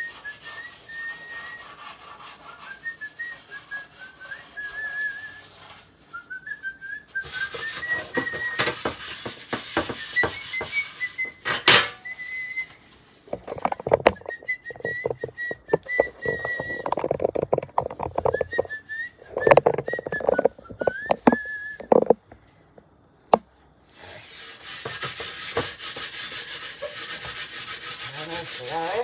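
A person whistling a wandering tune while scrubbing, with bursts of scratchy scrubbing on a kitchen surface and a stretch of clattering and knocking in the middle.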